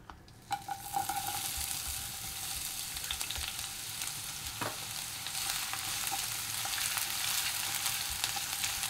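Sliced onions dropped into hot oil in a non-stick kadai: the sizzling starts suddenly about half a second in and goes on steadily. A spatula stirs and scrapes the onions around the pan near the end.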